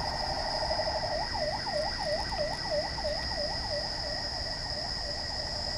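Ambulance siren sounding a fast yelp, quick up-and-down sweeps about three times a second that start about a second in after a steadier wail. The ambulance is asking traffic to let it through.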